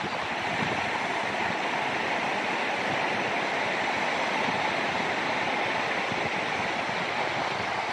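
Ocean surf breaking and washing on the beach: a steady, even hiss with no breaks.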